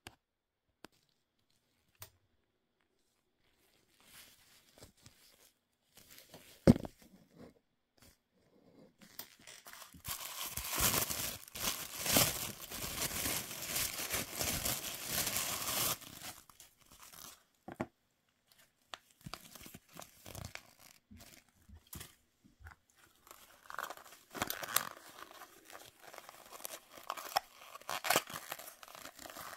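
White tissue-paper packing being pulled from a toy box and crumpled by hand. It rustles and crinkles loudly for about six seconds in the middle, with softer, broken crinkling and paper handling after. A single sharp knock comes earlier, before the rustling starts.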